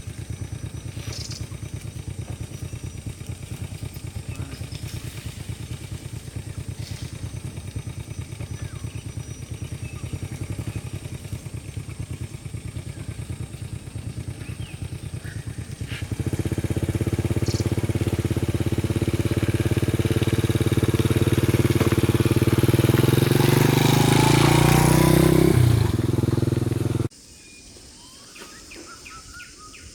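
A small engine running with a rapid, even beat. It grows louder about halfway through, rises in pitch shortly before the end, then cuts off abruptly, leaving quieter outdoor background.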